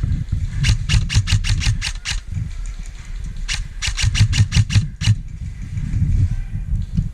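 Airsoft rifle firing two rapid full-auto bursts of about ten shots each, roughly seven shots a second, the second burst starting about three and a half seconds in.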